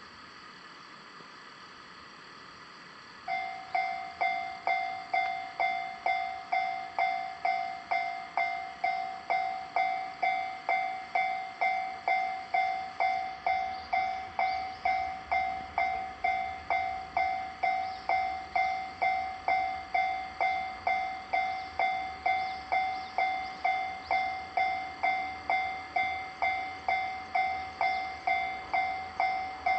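Japanese railroad crossing warning bell starts about three seconds in and keeps ringing, a pitched ding repeating roughly twice a second with each strike fading quickly.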